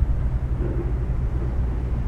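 Low, steady drone and rumble of ship engines, with no change.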